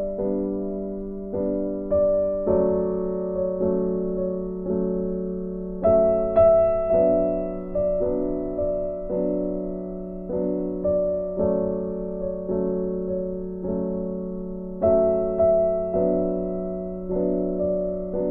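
Slow, gentle piano background music, with soft chords struck about once a second, each fading away.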